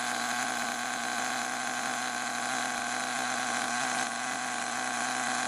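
Small nitro RC engine of an HPI Savage XL 5.9 idling steadily on its stand during a break-in tank: an even, unchanging buzzing hum.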